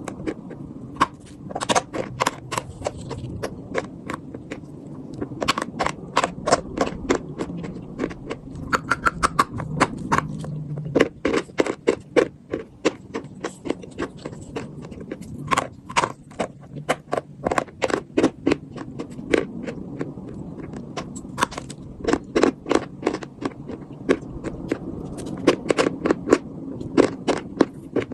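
Chalk being bitten and chewed close to the microphone: many sharp, dry crunches in quick runs, with brief pauses between.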